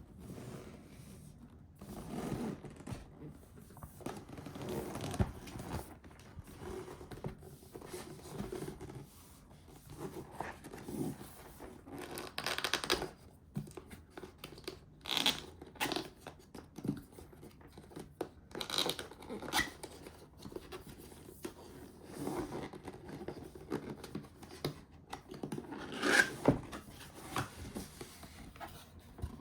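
A keyboard's retail packaging being handled and opened: cardboard and plastic scraping, crinkling and tearing, with scattered sharp clicks and knocks at irregular moments.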